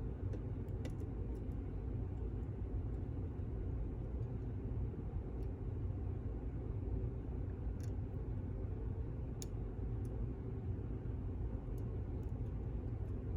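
Faint, sparse metallic ticks of a lock pick and tension wrench working the pins of a cam lock, heard over a steady low background hum.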